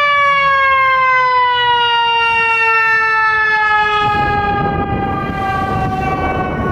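Fire truck siren winding down in one long wail that falls slowly in pitch, with the ladder truck's engine rumble growing louder as it passes, about four seconds in.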